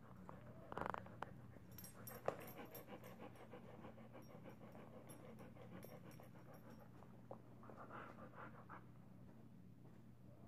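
Faint dog panting in quick, even breaths, with a few soft mouth noises and one sharp click, over a steady low hum.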